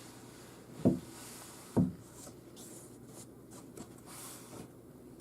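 Handling of a cardstock scrapbook mini album: faint paper rustling with two dull thumps about a second apart as flaps are lifted and laid back down.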